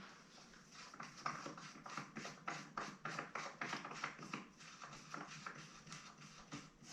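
Hard plastic foot pegs being screwed in by hand: light clicking and tapping of plastic against the frame, several times a second.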